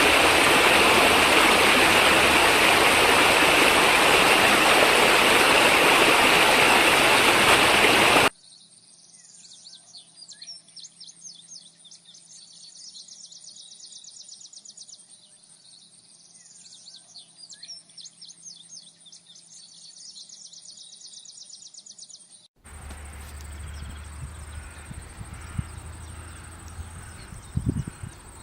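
A loud, steady rush like running water for about eight seconds, which cuts off abruptly. Then come quieter, rapid high-pitched chirring trills in repeated bursts, like birds or insects, until a low background hum takes over with a couple of soft thumps near the end.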